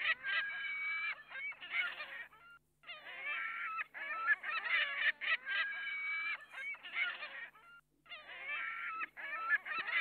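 A flock of flamingos calling, with many overlapping calls in stretches of a few seconds broken by brief pauses.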